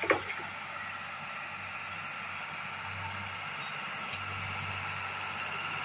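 Diesel engine of a PQRS portal gantry (track-laying equipment) running steadily as the gantry travels along the auxiliary rails, growing slightly louder as it approaches. A short sharp sound comes right at the start.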